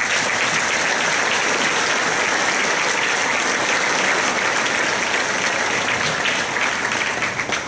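Audience applauding, a steady dense clapping that begins to fade near the end.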